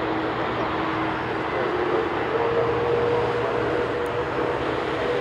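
Jet engines of a Boeing 787-9 (Rolls-Royce Trent 1000s) running at low power as the airliner taxis: a steady rushing noise with faint humming tones, one of which steps up slightly about two seconds in.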